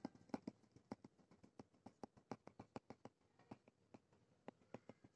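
Near silence with faint, irregular short clicks, a few each second.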